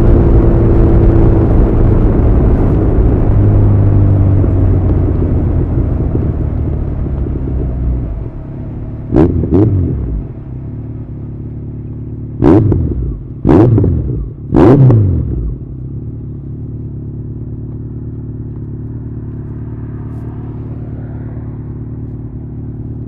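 Honda CB1100 air-cooled inline-four through an Arrow full exhaust system, running loud and then settling to idle. It gets four quick throttle blips, each a sharp rev that falls straight back, the last three in close succession, and then idles steadily.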